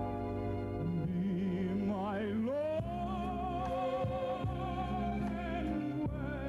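Operatic tenor singing with vibrato over instrumental accompaniment; about two seconds in his voice climbs to a long held note.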